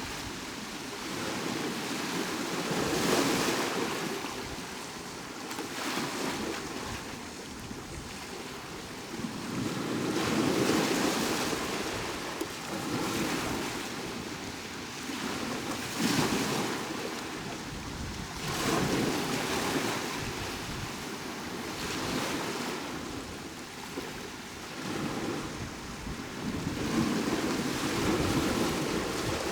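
Sea waves breaking on the shore, a steady wash that swells into a louder surge every few seconds.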